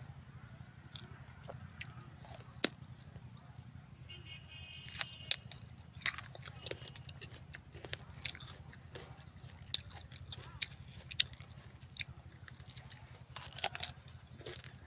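A person biting into and chewing a green guava close to the microphone: irregular sharp crunches, the loudest about two and a half seconds in and near the end, over a steady low hum.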